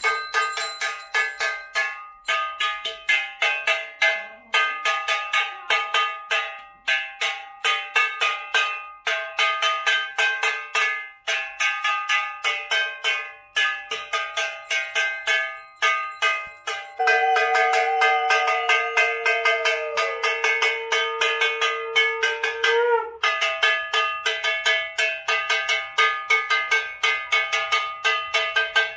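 Metal puja bell rung rapidly and continuously, several strikes a second, ringing with a bright metallic tone during aarti worship. For several seconds midway a long steady tone is held under the ringing.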